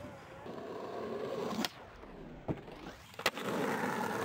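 Skateboard wheels rolling on asphalt, then the tail popping for an ollie about a second and a half in. A quieter stretch follows while the board is in the air, then a sharp clack as the board lands just after three seconds in, and the wheels roll on.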